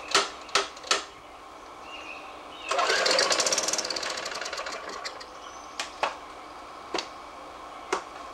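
Gasoline lawn mower engine pull-started: it catches with a fast, loud run of firing for a second or two, then fades and dies. It is stalling right after starting, which the owner blames on a machine that only starts when primed and quits at once. A few sharp clicks or knocks come before and after.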